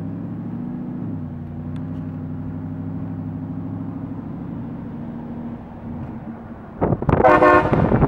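A pickup truck's engine runs steadily, heard from inside the cab. Near the end a truck-mounted train horn suddenly blasts, very loud.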